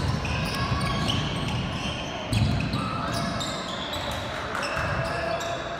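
Basketball game sounds in a gym: the ball bouncing on the hardwood court and short sneaker squeaks, over a bed of voices from players and spectators. A louder thud comes a little over two seconds in.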